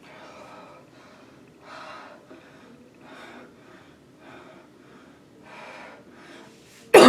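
A woman breathing hard and gasping for air between coughs, catching her breath after a coughing fit, with a breath about every second and a half. Right at the end a sudden, much louder cough begins.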